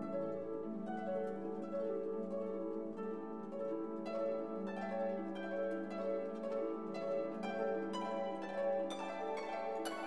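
Orchestral background music: plucked string notes over held chords, the plucked notes coming more often from about four seconds in.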